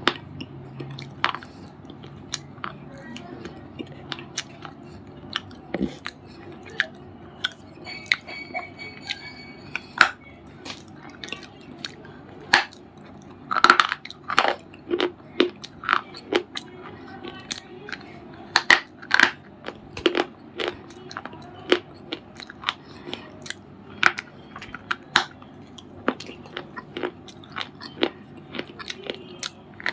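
A white unshaped bar of brittle material being crunched and crushed: a string of sharp, irregular crunches, most closely packed from about thirteen to twenty-two seconds in.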